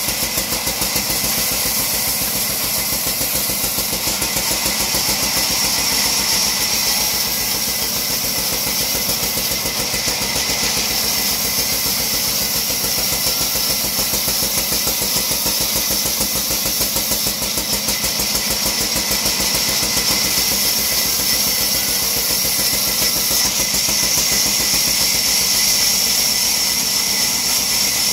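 A 48-inch vertical band saw running with a steady mechanical din and a high whine, while a log is fed along its table to the blade.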